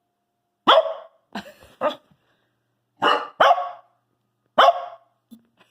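A dog barking: about six short barks in spaced groups, some in quick pairs.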